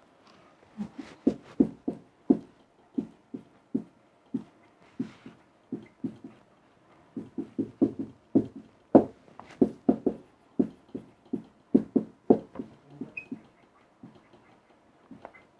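A quick, irregular run of short knocks and scratchy strokes, coming in clusters, with no speech.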